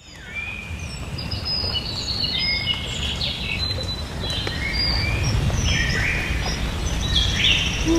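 Several birds chirping and whistling in short calls over a low steady rumble, fading in at the start.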